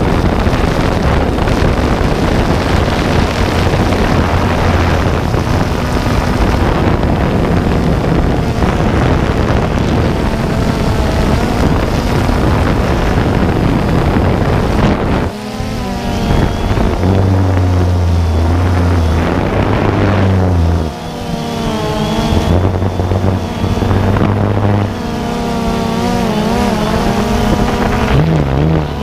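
Multirotor drone's motors and propellers running, with heavy wind noise on the onboard microphone. About halfway the wind noise drops and the motor tones waver up and down in pitch as the drone manoeuvres.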